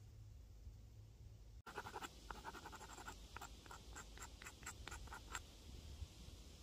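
Small knife blade whittling a small carved piece of wood or reed: a quick run of about a dozen short scraping strokes, roughly three a second, starting about two seconds in and stopping a little over a second before the end.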